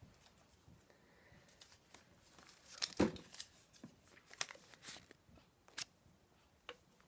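Small folded paper slip rustling and crinkling as it is unfolded in the hands, with a sharp knock about three seconds in and a few lighter clicks after.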